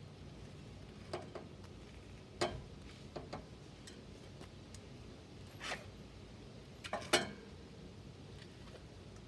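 Rubber bicycle inner tube being pulled out from under the tyre and rim by hand: a scattering of short rubbing and clicking sounds, about eight in all, the loudest about two and a half and seven seconds in.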